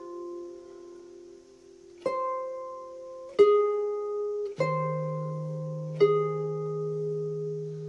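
Harp played slowly: a ringing note fades, then four single plucked notes follow about a second and a half apart, each left to ring out. A low bass string sounds with the third of them and keeps ringing under the rest.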